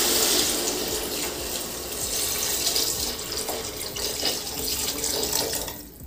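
Water being poured into a large pot of chicken and masala, a steady splashing pour that thins out and stops near the end.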